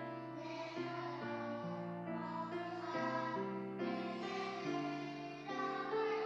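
Children's choir singing a worship song over instrumental accompaniment, in long held notes.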